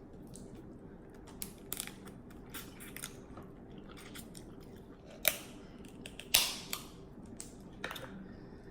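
Close-miked chewing and lip smacking while eating seafood: irregular wet clicks and smacks, with a cluster of louder smacks about five to seven seconds in.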